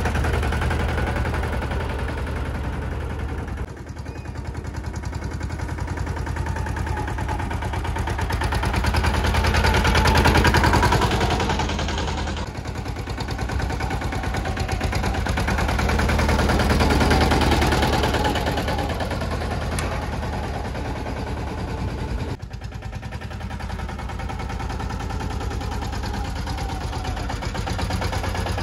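Escort Steeltrac 15 mini tractor's diesel engine running as the tractor drives along, a rapid, steady chug of exhaust pulses that grows louder as it passes close and then fades. The sound changes abruptly a few times.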